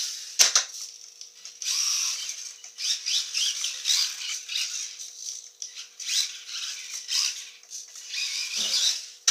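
Losi Micro DT RC truck's small brushed electric motor whining, rising and falling in pitch over and over as it is throttled up and eased off. A sharp knock about half a second in as the truck lands from the jump, and another knock near the end.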